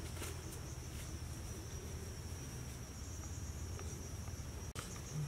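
Insects chirring in a steady high drone over a low steady rumble. The sound drops out for an instant near the end.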